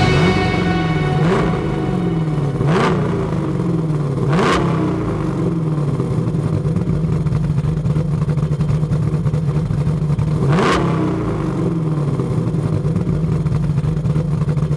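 Mercury Racing SB4 DOHC V8 in a 1970 'Cuda idling and revved in short, sharp throttle blips: three in the first few seconds and one more about two-thirds of the way through. Each blip rises quickly and drops back to a steady idle.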